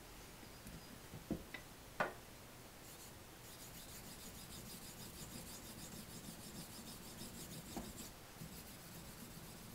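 Kogatana (small Japanese knife) blade being honed on a wet natural Japanese waterstone: steel scraping and rubbing on the stone in quick, short strokes. The stroking is faint and gets going about three and a half seconds in, after two light knocks.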